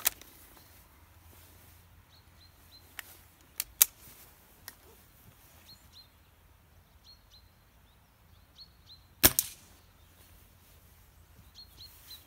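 Weihrauch HW97K .22 spring-piston air rifle firing a single shot about nine seconds in: one sharp crack with a short ring after it. Before it, a few sharp clicks come a few seconds in.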